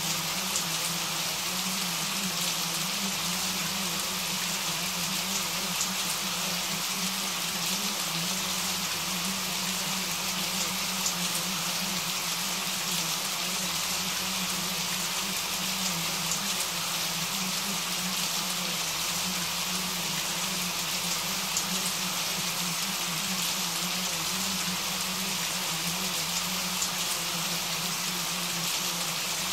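Steady rain falling: an even hiss, with a few brighter drop ticks here and there.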